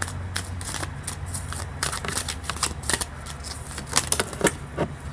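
Tarot cards being shuffled and handled: a quick, irregular run of papery flicks and snaps, over a steady low hum.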